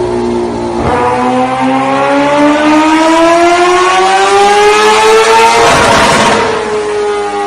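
An engine revving, its pitch climbing steadily for about five seconds, with a rushing whoosh about six seconds in before the note levels off; it starts and stops abruptly.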